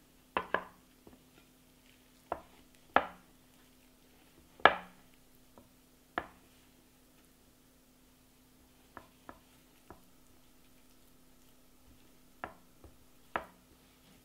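Hands mixing flour and water into a soft dough in a glass mixing bowl: scattered sharp knocks and taps of fingers against the glass, about a dozen, with the loudest nearly five seconds in, over a faint steady hum.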